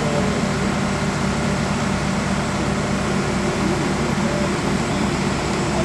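Steady low drone of running machinery, even in level and pitch.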